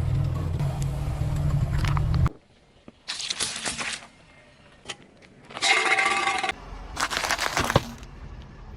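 A car engine runs low and steady, then cuts off abruptly. After a brief hush come several short bursts of crunching, crackling and spraying as items are crushed under a car tyre, while a fainter engine rumble returns near the end.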